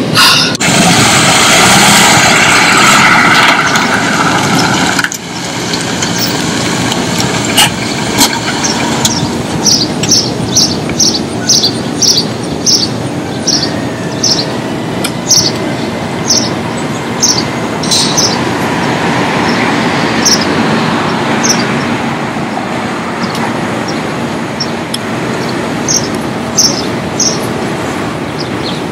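Steady outdoor background noise, with a car, louder and denser for the first five seconds. From about nine seconds in a bird chirps over it: short high chirps, about two a second at first, then more spaced out.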